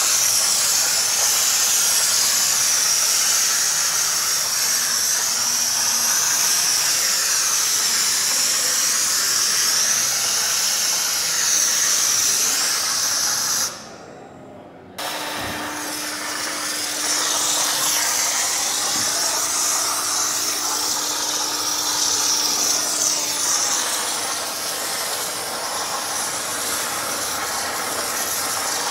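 Kärcher SC3 steam cleaner jetting steam from its hand wand: a steady, loud hiss. The hiss stops for about a second midway, then resumes with a faint low hum underneath for several seconds.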